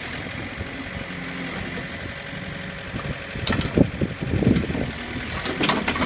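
Backhoe's diesel engine running steadily while the steel bucket digs into the dirt, with knocks and scraping of the bucket against the ground about three and a half seconds in and again near the end.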